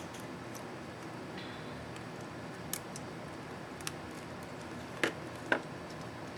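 Small plastic clicks from an ASUS X551C laptop's arrow-up keycap and its retainer clips being handled and snapped into place: two faint ticks, then two sharper clicks about half a second apart near the end, over a steady low hiss.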